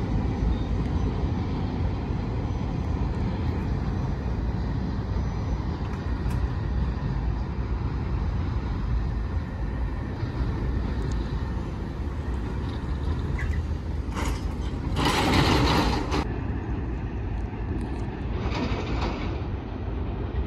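Freight train rolling past with a steady low rumble. About three-quarters of the way in comes a short loud burst of hiss, and a fainter one near the end.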